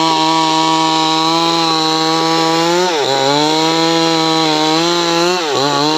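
Stihl MS 382 two-stroke chainsaw held at full throttle while ripping a sengon log lengthwise, its high steady pitch dipping briefly under load twice and recovering.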